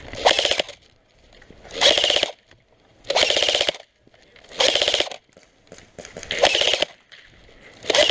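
Airsoft automatic gun firing short full-auto bursts, each a rapid buzz of shots about half a second long, repeating about every one and a half seconds: five bursts, with a sixth starting at the very end.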